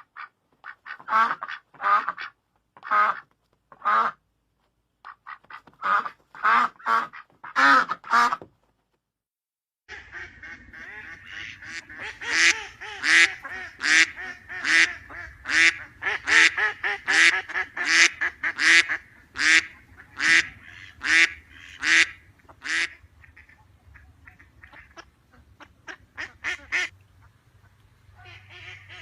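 Ducks quacking, in two recordings. First come short separate quacks with pauses between them, then a break of silence. After that a second recording starts over a steady low hum, with a fast run of quacks at about two a second that thins out towards the end.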